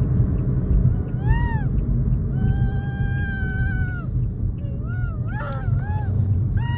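Samoyed puppy whining in high, thin cries: a short rising-and-falling whine, then one long held whine, then several quick wavering ones, over the steady low rumble of the car on the road.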